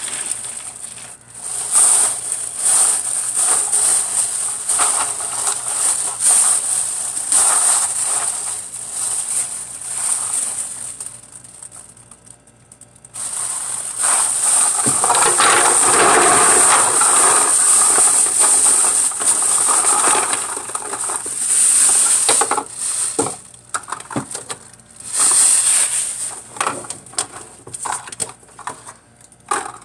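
A plastic bag of empty plastic lip gloss tubes crinkling as it is handled, with the small tubes clattering against each other and the hard plastic container. In the middle there is a stretch of steady rushing noise lasting several seconds; near the end come separate clicks and clacks.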